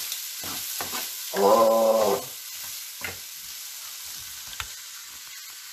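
Pork frying in a skillet, sizzling steadily, with a few light utensil clicks.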